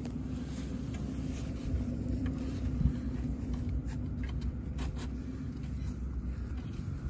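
Steady low rumble with a hum, under a few light clicks and knocks as the wooden wing and centre section are pushed together and handled.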